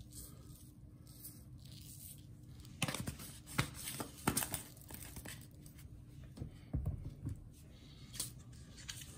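Faint handling sounds of seasoning a raw chicken: scattered clicks and rustles from spice containers, clearest about three to four and a half seconds in.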